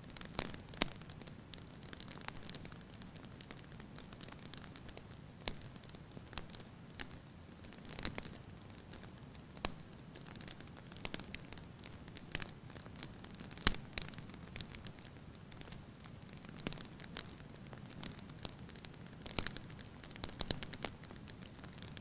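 Low, steady hiss with an irregular scatter of sharp clicks and crackles, with one louder click a little past the middle.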